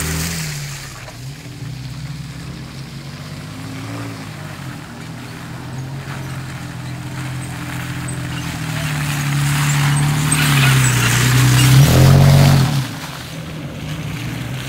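A 4x4 truck's engine pulling under load off-road, its revs wavering and then climbing steadily in pitch and loudness to a peak about twelve seconds in, before backing off suddenly.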